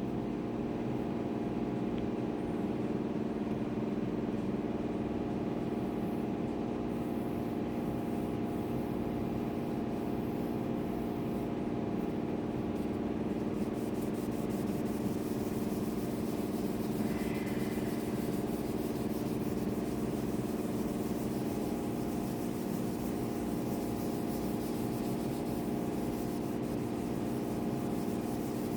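A steady mechanical hum of several steady tones, like a small motor or fan running, unchanging throughout.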